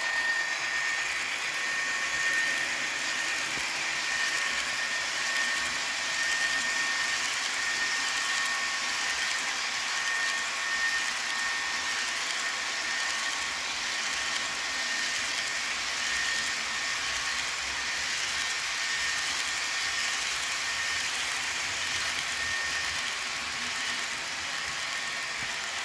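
HO scale model freight cars rolling along the track: a steady rolling rattle of small metal wheels on rail, with a thin high whine that fades in and out.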